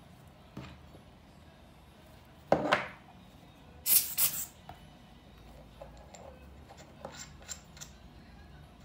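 Hand-squeezed rubber air blower puffing air to dust a lens cap: a short puff about two and a half seconds in, then a sharper hiss of two or three quick puffs about four seconds in. Light clicks and taps follow as the cap and lens are handled.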